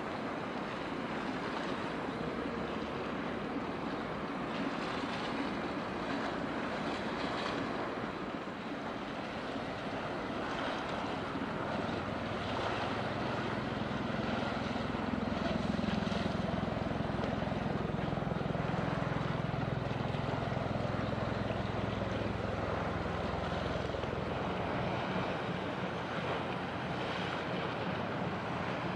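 Low engine drone of a passing coastal product tanker, swelling from about twelve seconds in and fading again, over a steady hiss of wind and water.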